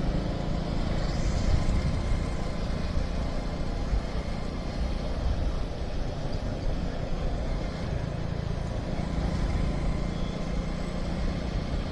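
Motorcycle running steadily at cruising speed, heard from the rider's own bike, with a steady low rumble of engine, road and wind noise and no sharp events.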